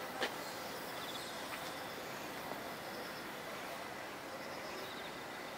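Steady outdoor background noise with faint high chirping and a single sharp click about a quarter second in.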